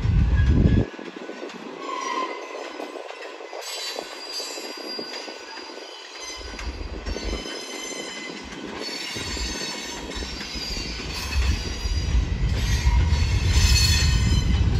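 Freight train of covered hopper cars rolling past, steel wheels rumbling on the rails with high-pitched wheel squeal that comes and goes. The rumble grows louder in the second half, and the squeal is strongest near the end.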